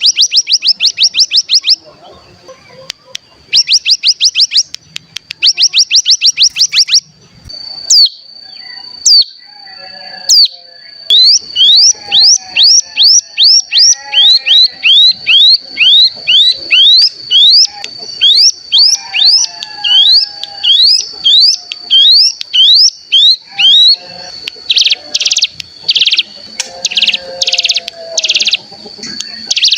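Ciblek gunung (cigun) singing. In the first few seconds come fast rattling trills, the 'ngebren'. Then a thin, steady high note with a long run of sharp rising chip notes, about two a second, over it, and near the end short buzzy notes.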